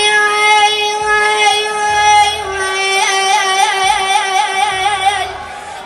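A boy's voice singing an Arabic mawwal, holding one long high note: steady at first, then wavering in a fast ornamented vibrato from about halfway, and trailing off near the end.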